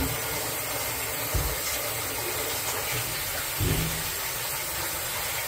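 Kitchen tap running in a steady stream over the sink while hands are washed under it, with a couple of soft knocks.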